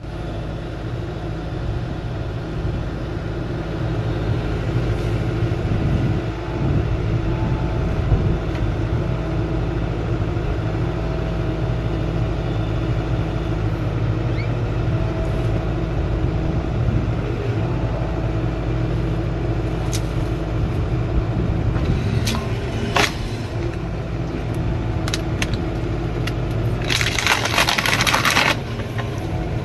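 Diesel engine of a machine carrying a hydraulic tree shear, running steadily. About two-thirds of the way in come several sharp cracks of wood breaking, and near the end a loud crackling rush of about a second and a half as the tree gives way.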